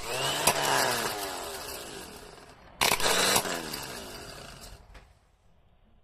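Nissan March AK12 starter motor giving a harsh grinding whirr twice, each burst starting loud and winding down in pitch as it fades over about two seconds. It is the abnormal noise that comes right after the engine starts, which the owner puts down to the starter motor.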